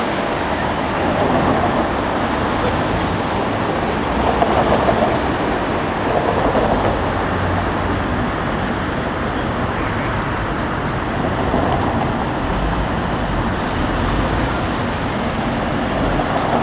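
Steady city street traffic noise, with a deeper low rumble joining in the last few seconds.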